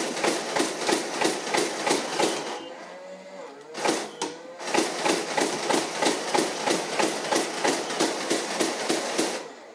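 Nerf Mastodon motorized blaster firing Mega darts in full-auto bursts, a rapid mechanical clatter of about four shots a second. It fires for about two and a half seconds, pauses briefly with a single burst near four seconds in, then fires steadily again until shortly before the end.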